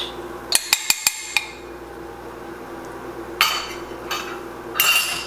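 Kitchenware clinks and scrapes as thick canned pumpkin puree is knocked and scraped out of a glass container into a skillet: a quick run of four or five sharp clinks about half a second in, then three short scrapes near the end.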